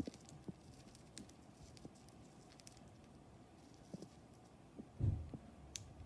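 Budgerigar pecking at a millet spray: faint, irregular small clicks and taps of its beak on the seeds, with one dull thump about five seconds in.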